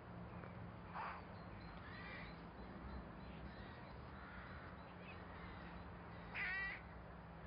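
Crows cawing: a few faint calls, then one louder, harsh caw about six and a half seconds in, over a quiet steady background.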